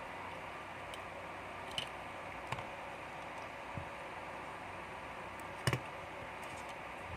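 Steady hiss with a few light clicks and taps of small hard objects, four in all, the loudest a quick double click about two-thirds through.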